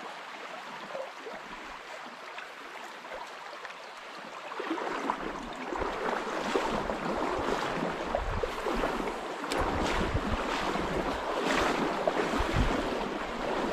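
Steady rush of river water. About four and a half seconds in it grows louder, with wind buffeting the microphone and scattered low thumps.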